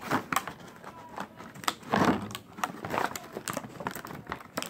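Clear plastic toy packaging crinkling and crackling as it is handled close to the microphone, with scattered clicks and a louder rustle about two seconds in.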